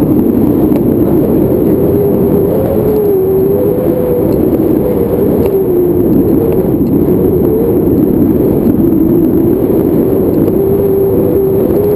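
Wind from a tandem paraglider's flight rushing over the camera microphone: a loud, steady rush with a tone that wavers up and down in pitch.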